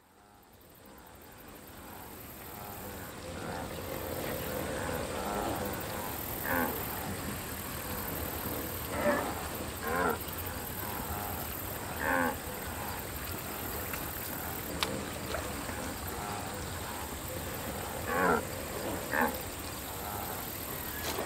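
Wildebeest herd ambience fading in: a steady hiss, with a handful of short, low moo-like grunts every few seconds.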